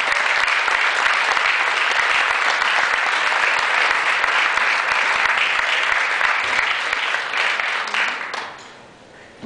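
Audience applauding, a steady crowd of many hands clapping that dies away near the end.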